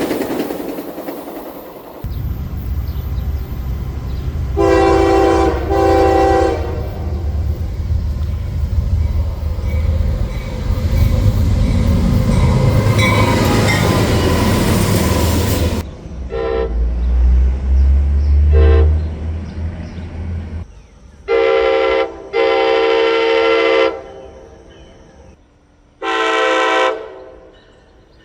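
Diesel locomotive air horns sounding across several spliced train clips. First two blasts over a passing train's rumble, then two short toots as another train rumbles by, then a short and a long blast, and one more blast near the end.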